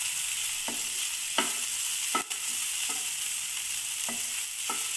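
Onion, tomato and grated coconut sizzling in ghee in a nonstick frying pan, stirred with a spatula that scrapes across the pan about six times, roughly once a second, over a steady frying hiss.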